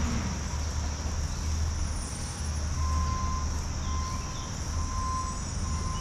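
Steady high buzzing chorus of insects, with a low steady rumble underneath and a thin, faint tone near the middle of the range that comes and goes from about halfway through.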